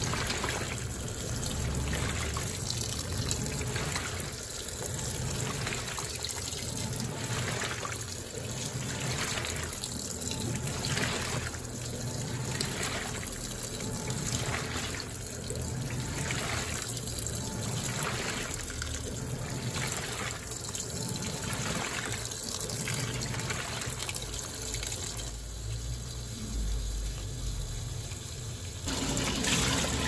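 Water pouring from the inlet into the tub of a Panasonic NA-FD10X1HRM top-load washing machine as it fills for the rinse, rising and falling about once a second. Near the end the sound changes and grows louder as the pulsator starts churning the water for the first rinse.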